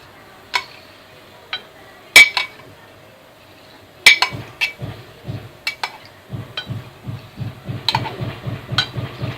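Kitchenware clinking: a spoon knocking against a pan or dish in several sharp, separate clinks, the loudest about two seconds in, then a run of soft, even knocks, about four a second, near the end.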